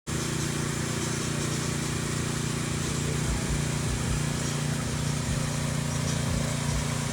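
A small engine cuts in abruptly and runs at a steady pitch, an even hum with a broad hiss over it.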